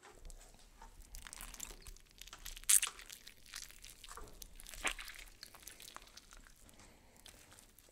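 Irregular crunching and rustling, with two sharper cracks, one nearly three seconds in and one about five seconds in, then growing fainter.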